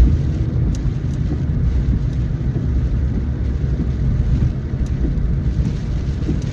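Steady low rumble of a car driving in a rainstorm, wind and rain noise mixed in, with a few faint ticks.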